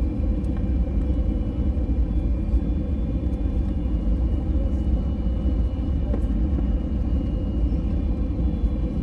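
Airbus A320 cabin noise on final approach: a steady, loud low rumble of engines and airflow, with a faint steady whine above it.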